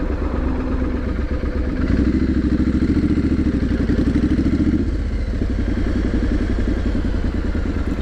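Triumph Street Scrambler 900's parallel-twin engine and exhaust running under way, a little louder from about two seconds in and easing back again near five seconds.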